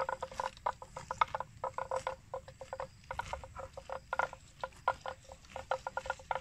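Water buffalo grazing: a rapid, irregular run of crisp tearing and crunching as they rip up grass and chew it, several per second, with a short lull about three seconds in.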